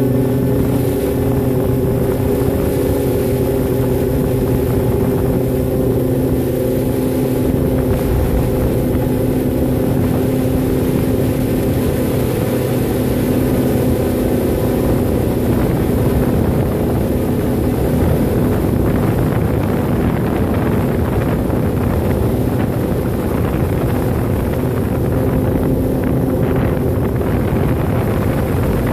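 Multirotor drone's electric motors and propellers running steadily in flight, heard from the phone strapped beneath it: a hum of several steady pitches under a rush of wind on the microphone.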